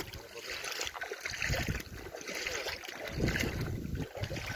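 Wind buffeting the microphone in uneven gusts, a low rumbling noise that rises and falls.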